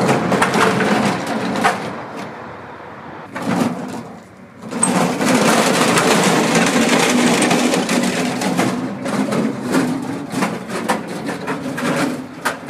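Irregular rustling and scraping with scattered clicks as welding leads and gear are handled and dragged over gravel. It is loud for the first two seconds, drops off, then comes back from about five to nine seconds.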